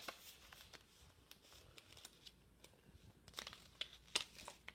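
Faint rustling and crinkling of a paper insert and toy packaging being handled, with a few sharper crackles about three and a half to four seconds in.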